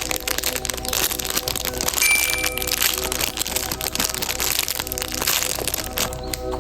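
Background music with a steady beat of tones, over continual crackling and crinkling, as of plastic packaging or a paper squishy being handled.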